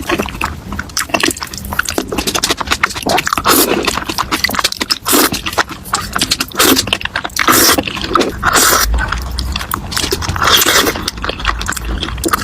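A person eating spicy noodles: irregular wet slurping and chewing with many sharp clicks.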